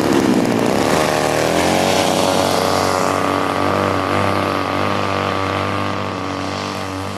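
50cc gasoline engine, taken from a lawnmower, driving the propeller of a large RC model airplane during its takeoff. It revs up, rising in pitch over the first couple of seconds, then runs steadily at high revs and slowly fades toward the end as the plane moves away.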